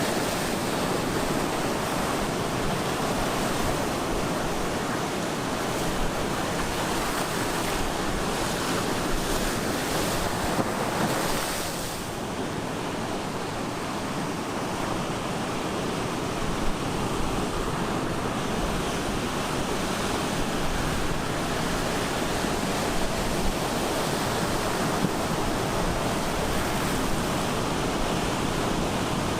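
Ocean surf breaking and washing ashore in a continuous rush, with wind buffeting the microphone.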